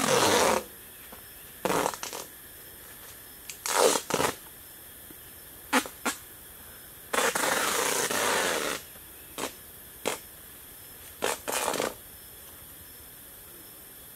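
Hands scraping and scuffing in dry dirt at the foot of a bamboo post, in a string of short bursts with one longer scrape about seven seconds in.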